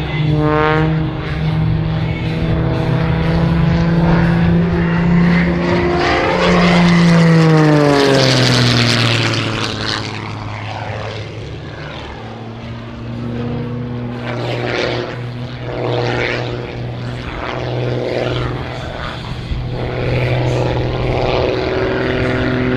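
Edge 540 aerobatic plane's flat-six piston engine and propeller running hard through a display. The note falls in pitch about eight seconds in, where it is loudest, then runs at a lower pitch that rises and falls with the manoeuvres.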